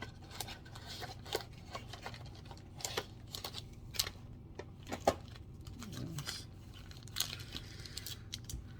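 Cardboard trading-card box and its wrapped packs being handled: irregular clicks, taps and paper-and-cardboard rustling as the opened box is pulled apart and its contents taken out.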